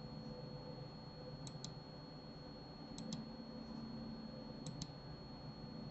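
Computer mouse clicking three times, each a quick pair of ticks, over a faint steady hum.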